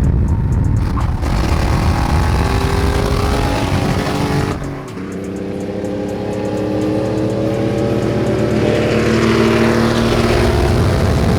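Chevrolet Camaro engine accelerating hard, its pitch climbing. About halfway through the level drops abruptly as it shifts gear, then the revs climb again.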